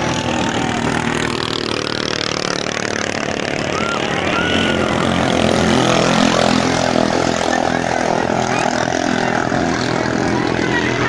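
Engines of ketinting longtail racing boats running at speed as the boats pass, growing to loudest about halfway through.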